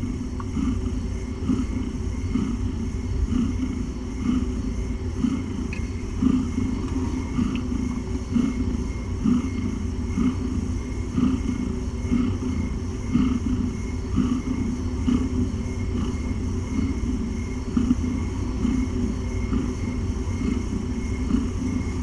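Domestic cat purring steadily, a low rumble that swells about once a second.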